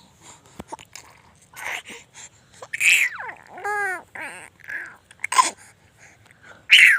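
A baby babbling and squealing in short bursts, with one drawn-out coo that rises and falls in pitch a little before the middle.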